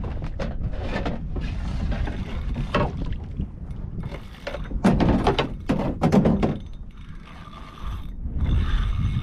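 Fishing reel working under load with a hooked Spanish mackerel on the line, its gears and ratchet clicking, over a steady rumble of wind on the microphone. Two louder thumps come about five and six seconds in.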